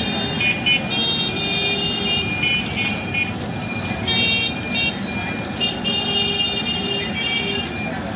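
Street traffic noise with high-pitched vehicle horns sounding again and again in short stepped groups of tones.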